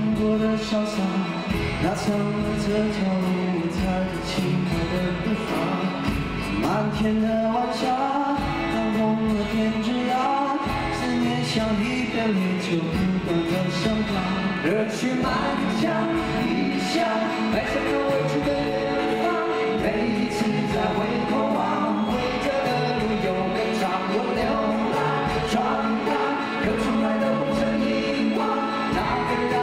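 Live rock ballad: men singing over a twelve-string acoustic guitar, an electric guitar and a band with a steady beat.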